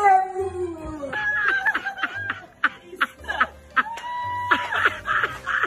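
A white boxer's drawn-out howl that slides down in pitch and ends about a second in. It is followed by a person laughing in short, choppy snickers.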